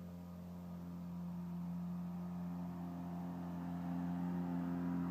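Seabee 4 outboard motor running at a steady pitch, growing gradually louder.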